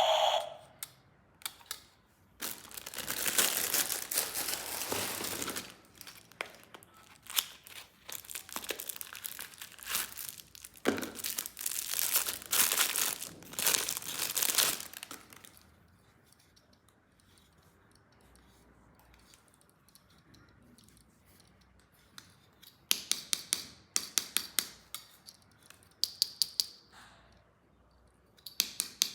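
Plastic packaging crinkling and tearing in several bursts over the first half. After a quieter stretch, quick runs of sharp clicks follow near the end.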